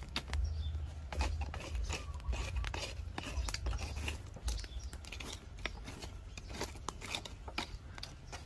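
Charcoal fire crackling, with many irregular sharp snaps and pops, under a piece of dried wood being heated to bend it straight; a low steady rumble runs underneath.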